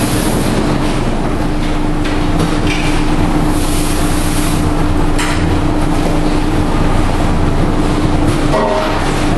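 Steady running of crab-processing machinery, a loud even noise with a constant low hum. A sharp metal knock comes about five seconds in, and a brief metallic rattle near the end.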